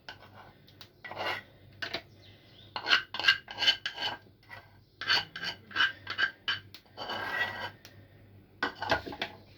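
A utensil scraping a thick cream mixture out of its bowl and into a small glass jar: a run of short scrapes, two or three a second, with one longer scrape about seven seconds in.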